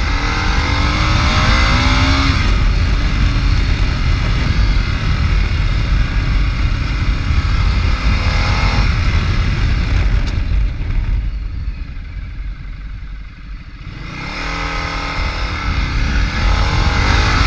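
Ducati Multistrada's V-twin engine rising in pitch as it accelerates near the start and again in the last few seconds, with heavy wind rumble on the mic. About ten seconds in it eases off and goes quieter for a few seconds.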